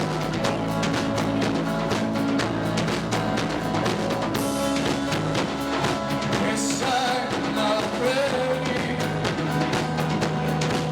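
Live rock band playing, with a drum kit beating steadily over held bass notes, recorded with crappy, distorted sound. A wavering melodic line comes in from about the middle of the stretch.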